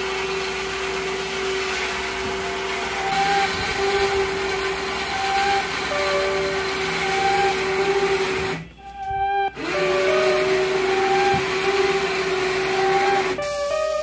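Small electric motor running with a steady whine as a ride-on toy car is loaded up a tilted flatbed ramp; it stops for about a second near the middle and starts again. Music plays underneath.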